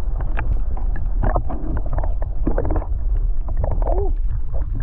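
Loud, muffled low rumble of water moving against a submerged camera, with scattered knocks and clicks.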